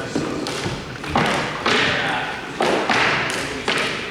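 Hockey play: a run of sharp hits and thuds, about six in four seconds, each trailing off in a short clattering decay.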